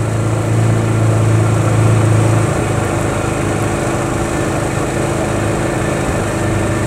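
Small boat outboard motor running steadily, pushing the boat along at an even speed.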